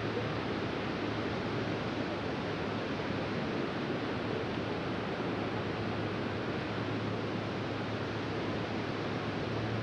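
Steady rushing water, an even unbroken roar of noise, with a faint steady low hum underneath.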